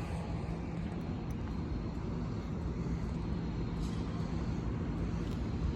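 Diesel locomotive engine running steadily: a low rumble with a constant hum.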